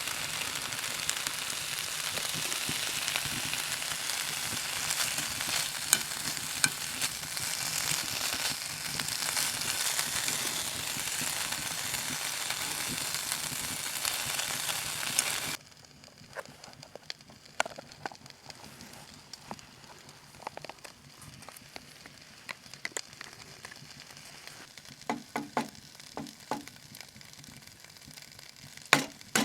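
Food frying in a hot pan, a steady dense sizzle with small pops, which cuts off abruptly about halfway through. After that comes a much quieter stretch with scattered light clicks and knocks.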